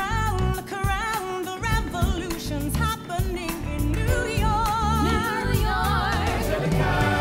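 Musical-theatre pop song: several voices singing in harmony over a steady drum beat, moving into long held notes with wide vibrato in the second half.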